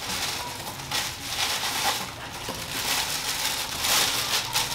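Clear plastic packaging wrap crinkling and crackling as it is handled and pulled off a small accessory, irregular and loudest near the end.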